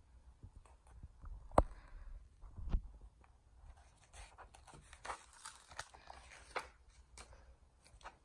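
Faint rustling and soft taps of a paper picture book being handled and its pages turned, with a sharper tap about a second and a half in and another just under three seconds in.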